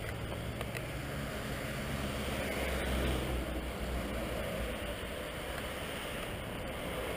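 Road traffic close by: vehicle engines running with a steady low rumble and tyre noise, one engine swelling louder about three seconds in.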